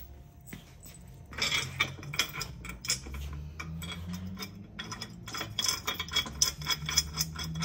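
Steel eye nuts and washers clinking and rattling as they are spun by hand onto bolts through the bike rack's steel channels: a quick, uneven run of small metallic ticks that starts about a second and a half in.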